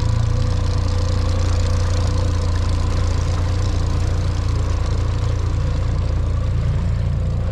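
Dinghy outboard motor running at a steady speed, heard close up.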